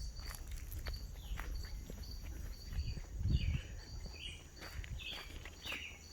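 Footsteps walking outdoors, with short high chirps repeating about twice a second and a low rumble underneath; a heavier thump comes about three seconds in.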